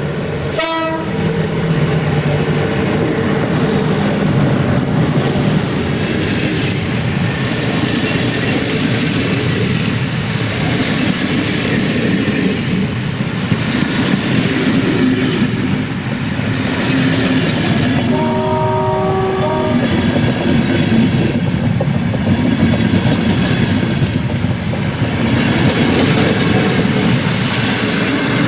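A train running through the station, with loud wheel-and-rail noise. A short horn toot sounds right at the start, and a horn blast of about a second and a half about two-thirds of the way through.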